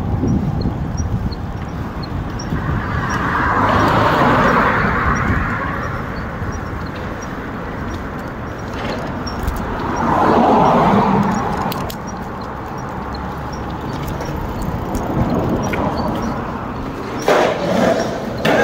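Cars passing on a city street, heard while riding a bicycle: two vehicles go by, each swelling and fading, about four seconds in and again about ten seconds in, over a steady low rumble. A few sharp clatters near the end.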